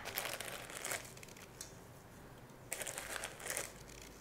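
Dry, grainy rustling of salt being pinched by the fingers from a small container and sprinkled over raw ground beef in a steel bowl, in two short bouts, one at the start and one about three seconds in.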